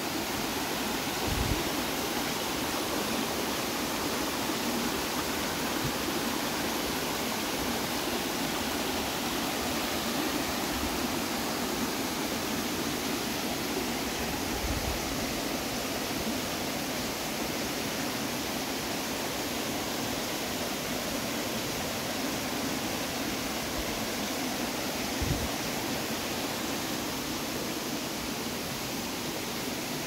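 Mountain creek water rushing steadily over rocks in small cascades, with a few low thumps about a second and a half in, halfway through, and near the end.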